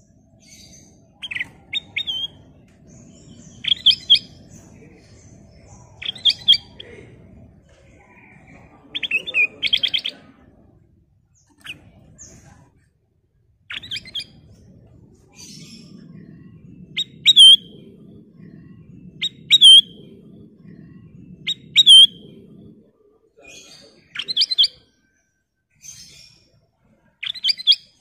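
Ruby-throated bulbul (kutilang emas) calling: short, loud phrases of a few quick, clear notes, some ending in an upward hook, repeated every two to three seconds.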